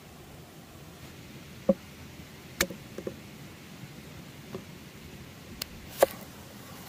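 About six short, sharp knocks of leeks and a chef's knife on a wooden chopping board, over a faint steady outdoor hiss. Near the end the knife chops through a leek onto the board, the loudest knock.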